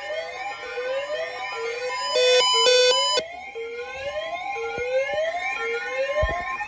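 Electronic emergency-alert tones: a whooping tone sweeps up in pitch about once a second over a steady high tone, broken by two loud beeps about two seconds in. Near the end a slower rising wail begins.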